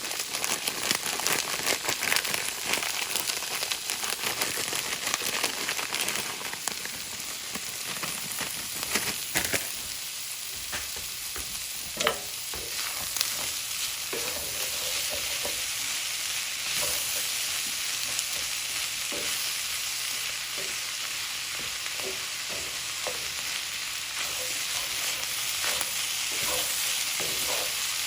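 Pork fried rice sizzling in a cast iron pan while it is stirred, with frequent clicks and scrapes of a utensil against the pan, busiest in the first half.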